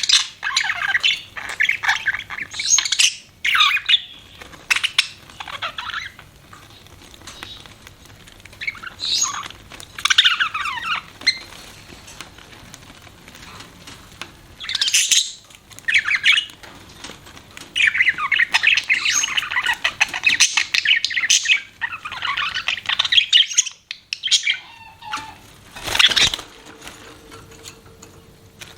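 Pet budgerigars chirping and warbling in quick bursts, with short pauses between the bursts. Near the end there is a single sharp, short sound.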